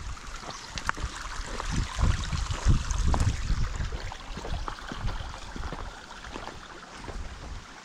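Wind buffeting the microphone in uneven gusts, strongest about two to three and a half seconds in, over a steady rushing hiss, with scattered light clicks.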